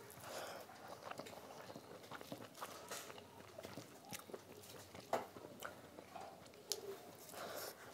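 Close-up chewing and wet mouth smacks of someone eating rice and curry by hand, with soft squishing as fingers mix and scoop rice and curry on the plate. Two sharper clicks stand out, about five seconds in and near the end.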